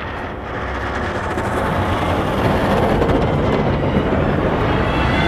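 Snowplow clearing a road: a heavy vehicle's engine rumbling under the steady rush of snow being pushed and thrown off the blade, growing louder over the first few seconds.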